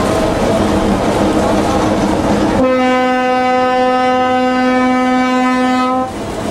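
Narrow-gauge railcar running along the track, heard from inside its cab; about two and a half seconds in its horn sounds one long steady note for about three and a half seconds, then cuts off and the running noise carries on.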